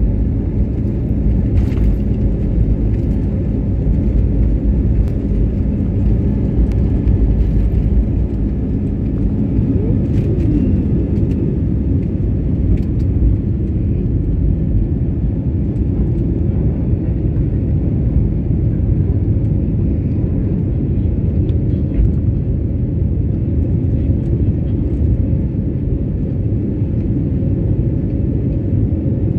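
Cabin noise of an Airbus A320-family airliner taking off: a steady, deep rumble of the jet engines at takeoff thrust and the runway roll. It eases a little about eight seconds in as the wheels leave the ground.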